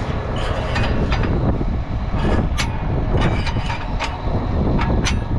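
An engine running steadily, with repeated sharp metal clicks and clanks from a corn planter's row-unit springs and adjusters being moved by hand.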